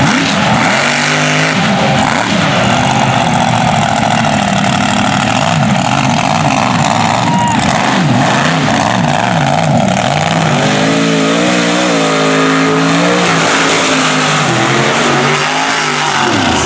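Mega truck engines revving hard as the trucks race across the dirt, the engine pitch rising and falling again and again, with one long climbing rev about two-thirds of the way through.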